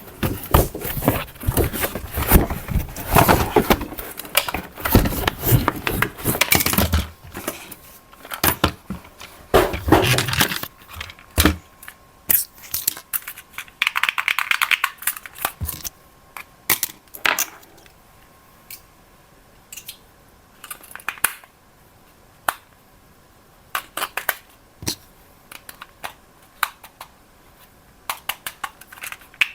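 Packaging being handled and opened: dense crinkling and tearing for roughly the first ten seconds, then scattered clicks and knocks of plastic parts with a short rustle in the middle.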